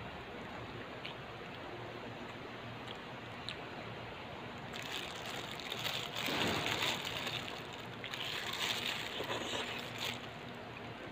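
A thin clear plastic bag crinkling as fingers dig food out of it, in two spells from about five seconds in until about ten seconds in, over a steady background hiss.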